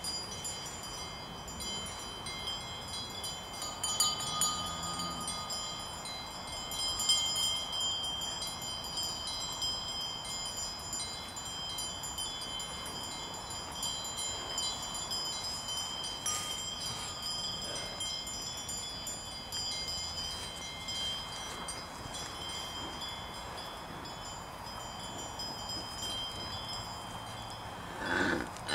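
Several cowbells on grazing cattle clanking and ringing continuously, their tones overlapping.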